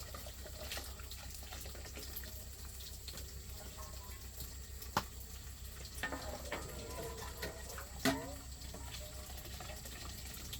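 Water trickling and splashing faintly over a low steady hum, with two sharp clicks, one about halfway through and one near the end.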